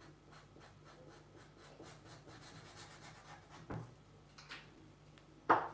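Broad-tip marker rubbing and scratching on paper in quick, repeated strokes as solid black areas are filled in. A soft knock comes a little past halfway, and a sharp click near the end.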